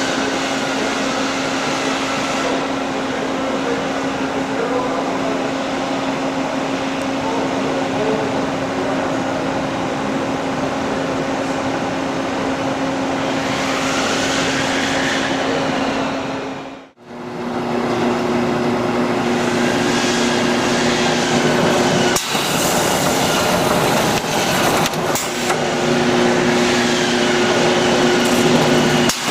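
CNC cardboard core cutter running, a steady machine noise with a constant hum. The hum's pitch changes after a brief dropout about halfway through, and a few sharp clicks follow.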